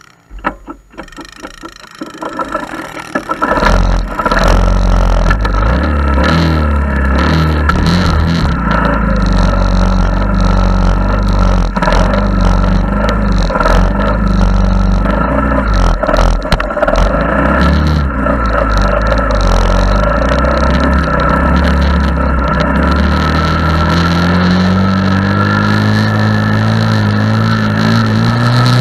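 Honda ATC 70's small single-cylinder four-stroke engine running under way, its pitch rising and falling with the throttle. It is faint for the first few seconds, then loud from about three and a half seconds in, and climbs steadily in pitch near the end.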